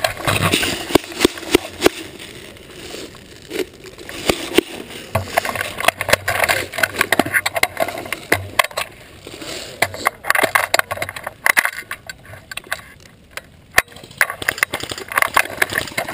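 Footsteps crunching through dry leaves and undergrowth, with the airsoft M249 and its sling rattling against the gun-mounted camera: irregular crackling and clattering.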